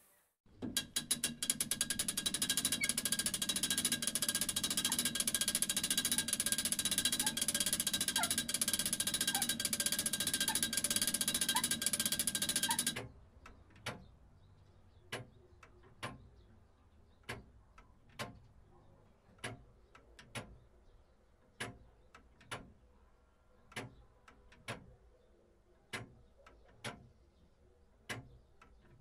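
A mechanism running with a rapid, dense clatter for about twelve seconds, then stopping abruptly. Single sharp ticks follow, about once a second.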